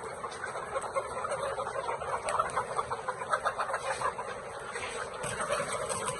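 A flock of chickens clucking and calling together in a dense, overlapping chatter.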